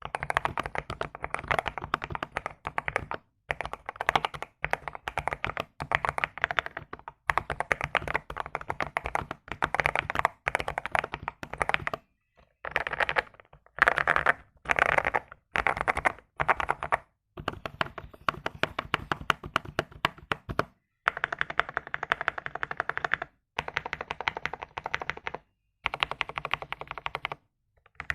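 Akko 5075S mechanical keyboard with lubed, filmed Akko CS Jelly Pink linear switches, PBT keycaps and a tape mod, typed on quickly in runs of keystrokes with short pauses between them.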